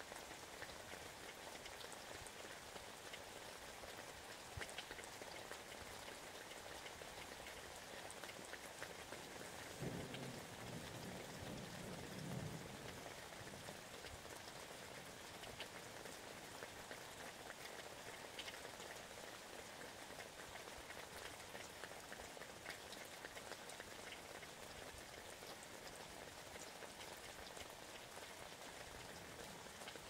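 Steady rain falling, with scattered ticks of individual drops. About ten seconds in there is a brief low rumble lasting a couple of seconds.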